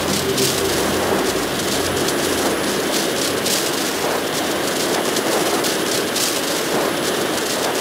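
Loud, steady rushing-air roar, a flight sound effect for a craft at hypersonic speed, flaring with bursts of hiss now and then. A low hum under it fades out in the first second or two.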